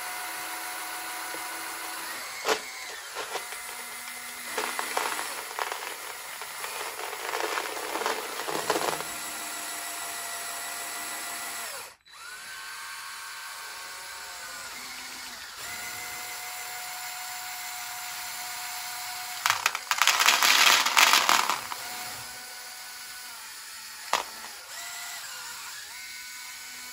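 Small Lego electric motors of a BuWizz-driven RC excavator model whining steadily as the arm and bucket work, the pitch shifting as motors stop and start. Marbles rattle in the bucket now and then, and about twenty seconds in a loud clattering burst comes as the bucket load of marbles pours out.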